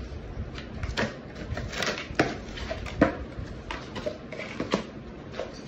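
Cardboard box crackling and tearing as a husky bites and paws it apart: a string of sharp snaps and crinkles, roughly one a second.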